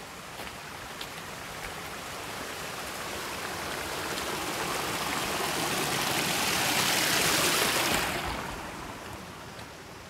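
Water from a concrete irrigation channel spilling and rushing down over rocks in a small cascade. It swells steadily, is loudest between about six and eight seconds in, then drops away quickly.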